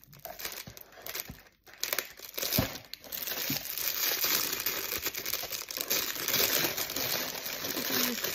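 Cellophane treat bag crinkling as it is handled and twisted shut, with sharp crackles at first, then continuous loud crinkling from about three seconds in.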